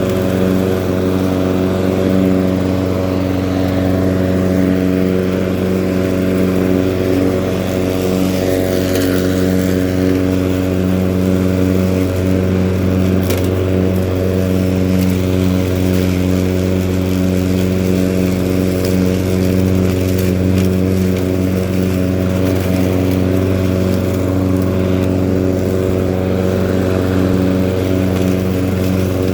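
Husqvarna LC151 walk-behind petrol lawn mower running at a steady engine speed while cutting thick grass, its pitch holding constant.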